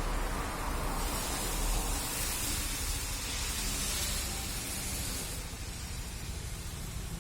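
Steady hiss of rain and water spray over a low vehicle rumble. The hiss is strongest from about a second in until past the middle, then eases.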